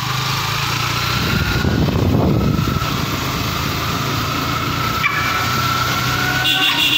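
Engine of the vehicle carrying the camera running steadily on the move: a low hum with road and wind noise and a faint whine that slowly rises. Near the end a bright electronic tune starts.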